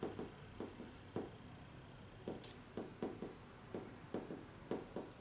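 Marker pen writing on a whiteboard: a string of short, irregular strokes and taps as kanji are written.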